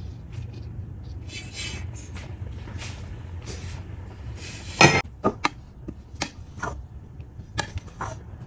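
A cloth-covered lid lifted off a pot of steamed basmati rice with a few seconds of rustling. Then a sharp knock about five seconds in, followed by a run of short clicks and scrapes as a spatula turns the rice against the pot, over a steady low hum.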